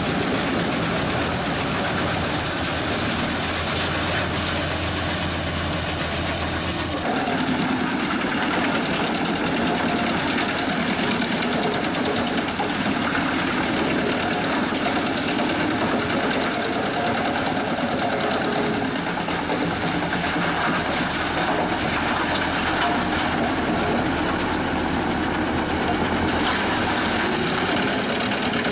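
A Pezzolato PTH 1000/1000 G drum wood chipper running off a New Holland tractor's power take-off, with the tractor engine and the chipper drum making a steady, dense machine din. The sound changes abruptly about seven seconds in, when a high hiss and a low hum drop away.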